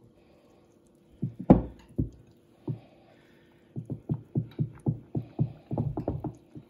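A spoon stirring flour into milk and eggs in a glass bowl for pancake batter, making dull thuds: a few scattered ones from about a second in, then a quicker run of about three a second from about four seconds in.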